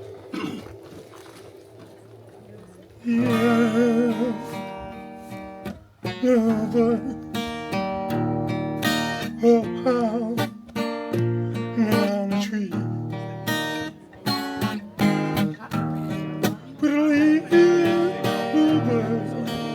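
A song with strummed acoustic guitar and a singer. The music comes in loud about three seconds in, after a quieter opening.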